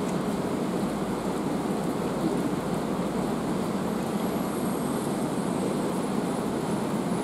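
Steady rain falling in a city, an even hiss with a continuous low rumble under it.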